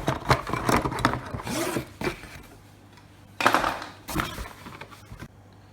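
Canister filter fittings being handled: a quick run of clicks and rattles, then two short noisy bursts about three and a half and four seconds in.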